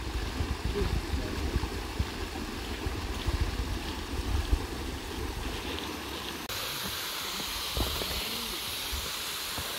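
Shallow mountain stream running over rocks, with a low rumble underneath. About six and a half seconds in, the sound changes abruptly to a steadier, brighter hiss.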